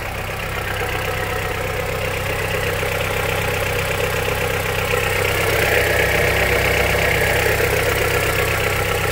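Honda CR-V 2.4-litre four-cylinder engine idling cold in Drive, growing slightly louder, with a knock that the owner places inside the engine itself and that thick fresh oil with an additive has not cured.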